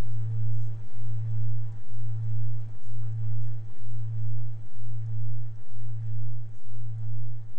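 A single deep electronic tone, a steady low hum that swells and fades about twice a second, over a faint hiss.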